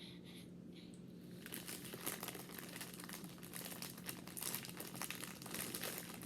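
Plastic candy bag crinkling as it is handled, starting about a second and a half in and going on as a quick run of rustles.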